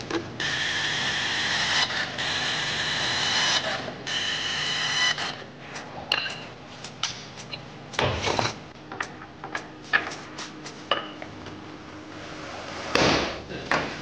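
Electric power tool whining steadily in two runs as engine fasteners are driven, then a series of light clicks and knocks of small metal engine parts being set down on a stainless steel bench, two of them louder.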